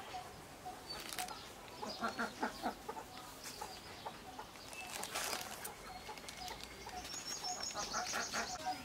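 Domestic poultry clucking and calling now and then, over a faint short note repeating about twice a second and a thin high chirping near the end.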